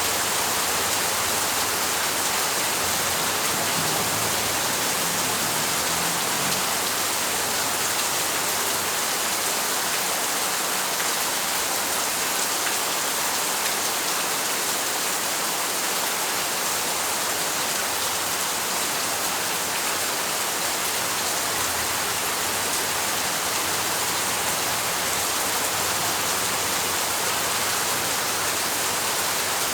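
Steady rainfall, an even hiss of rain with no breaks.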